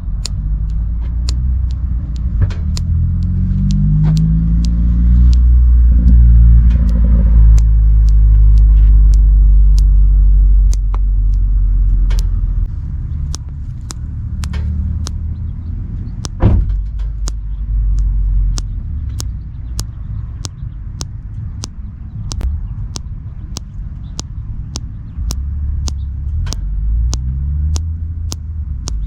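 A thumb being popped over and over: dozens of sharp clicks, irregular at first and then coming about one to two a second, with one louder pop about halfway through. Under them runs a steady low rumble.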